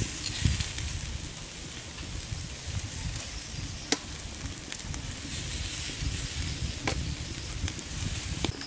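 Marinated whole catfish sizzling on a wire grill over a charcoal stove, with a sharp pop now and then as fat and marinade spit onto the coals. Metal tongs clatter on the grate near the start.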